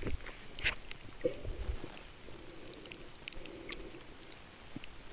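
Muffled underwater sound picked up by a camera held below the surface: scattered faint clicks and a few low knocks, with a short low hum twice.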